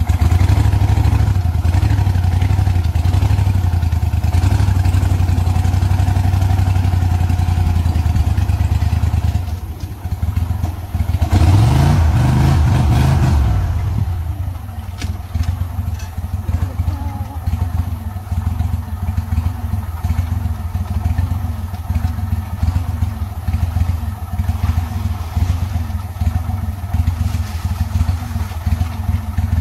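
Small engine of a crawfish boat running steadily, revving up for a couple of seconds near the middle, then running on with an even, regular pulsing.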